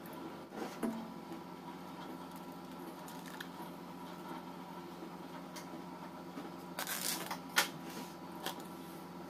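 Plastic cling wrap crinkling as a hand presses it around a stainless steel mixing bowl, with a sharp click just after and a few lighter taps, over a steady background hum.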